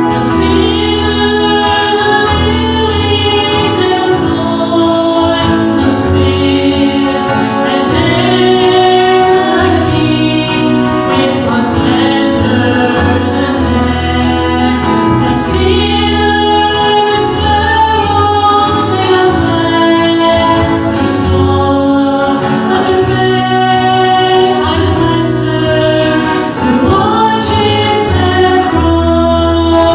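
A group of voices singing a gospel hymn together, with a strummed acoustic guitar and a low bass line underneath.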